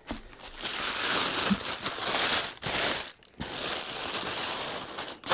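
Plastic packaging crinkling as a camera lens is unwrapped by hand, in two stretches with a short pause about three seconds in.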